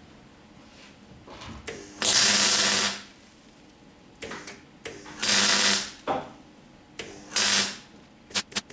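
MIG welder tacking a steel repair patch in three short bursts, each about a second of loud crackling buzz that starts and stops sharply.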